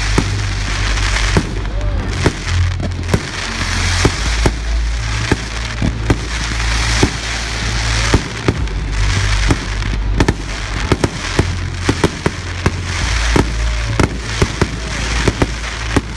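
Fireworks display: a dense, irregular run of bangs and booms from bursting shells with crackling in between, and a few short whistles.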